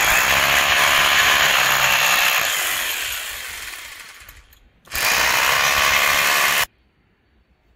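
Hand-held hammer drill boring into a plastered masonry wall for an anchor hole. It runs for about four seconds and dies away, then runs again for about two seconds and cuts off suddenly.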